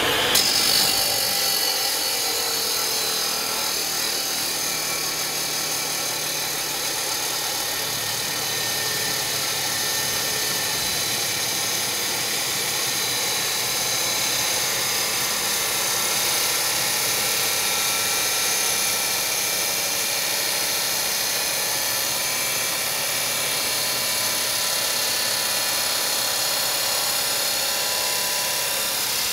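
Electric chop saw with a 14-inch diamond blade cutting through quarter-inch-thick square steel tubing: a steady high whine of the motor over a continuous grinding hiss of the blade in the steel.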